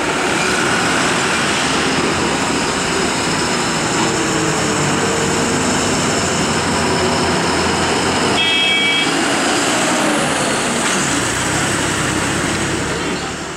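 Heavy loaded lorry's diesel engine running as it crawls round a hairpin bend, amid steady road and traffic noise. A short vehicle horn toot sounds about two-thirds of the way through.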